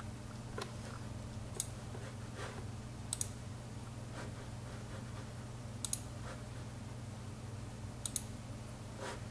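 Computer mouse clicking now and then, about seven clicks with two quick double-clicks, over a steady low hum.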